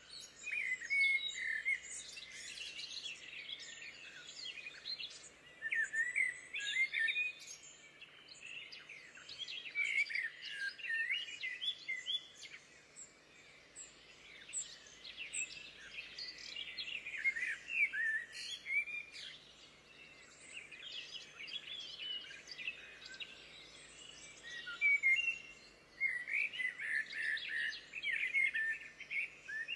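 Songbirds singing and chirping, many quick high notes and trills overlapping, rising and falling in strength with short lulls.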